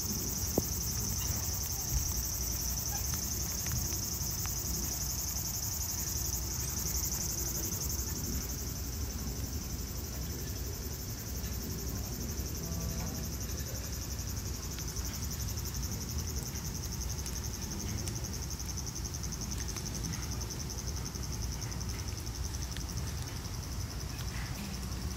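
Steady high-pitched insect buzzing, a fine rapid pulsing trill that is a little louder in the first several seconds, over a low outdoor rumble. Two brief knocks sound in the first couple of seconds.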